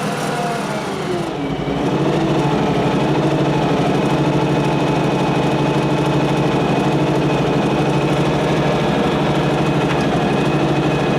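John Deere X585 lawn tractor engine running. Its pitch drops over the first second or two, then it runs steadily and a little louder.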